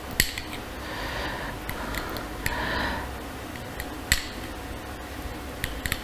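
Metal teaspoon stirring and pressing leaves steeped in hot water in a small clear cup: soft scraping with a few light, sharp clinks of the spoon against the cup.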